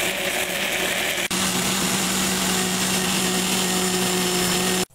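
Arno electric blender's motor running at full speed with a steady hum, puréeing chopped green banana with water into a smooth paste; it switches off abruptly near the end.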